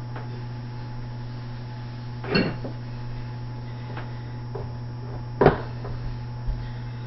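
A towel and hands polishing a stainless steel sink, knocking against the metal bowl a few times; the two loudest knocks come about two and a half and five and a half seconds in, the first ringing briefly. A steady low hum runs underneath.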